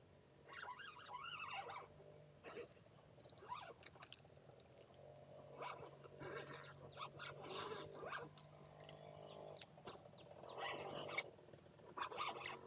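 Faint outdoor ambience with distant animal calls coming and going several times.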